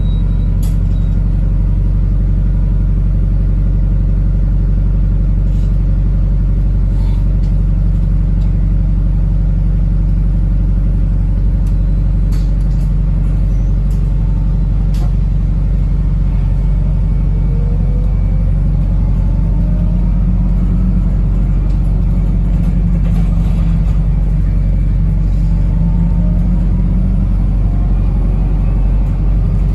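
Wrightbus New Routemaster (NB4L) double-decker heard from inside while driving: a steady low drone from the drivetrain with occasional rattles and clicks. In the second half, several rising whines come as the bus speeds up.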